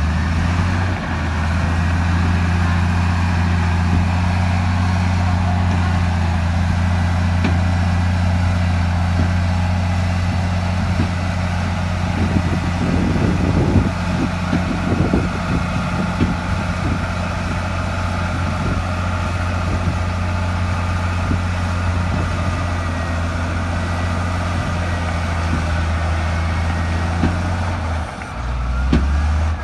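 Heavy diesel engine of earthmoving machinery running steadily, with a strong low drone. Knocks and clanks come about halfway through, and the engine note changes near the end.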